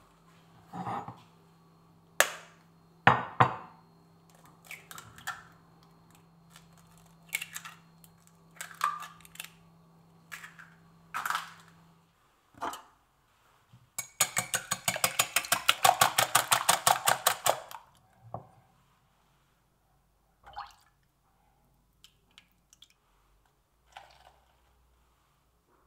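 Eggs cracked one by one on the rim of a glass bowl, a scatter of sharp knocks and clinks. About fourteen seconds in, the eggs are beaten briskly in the glass bowl: a rapid, even run of clinks lasting about four seconds, the loudest part, followed by a few light taps.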